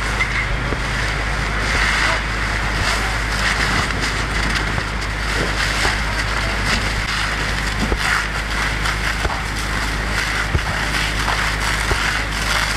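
Burning wreckage crackling and popping in short snaps over a steady low engine rumble.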